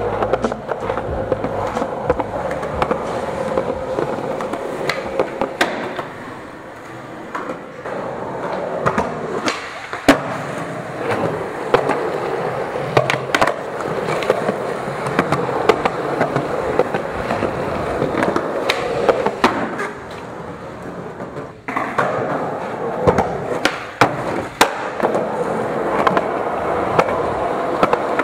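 Skateboard wheels rolling on smooth concrete, with sharp cracks from tail pops and board landings every few seconds. The rolling twice drops quieter for a moment.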